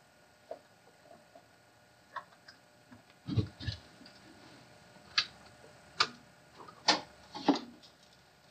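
Scattered sharp clicks and knocks, with a pair of fuller thumps about three seconds in, as a camcorder power cord and plug are handled.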